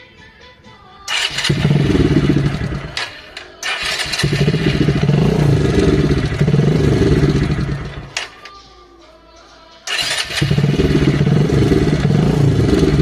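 Bajaj motorcycle engine starting abruptly and running in three stretches, with a brief dip about three seconds in and a pause of nearly two seconds around eight seconds in. Faint music comes before the engine first starts.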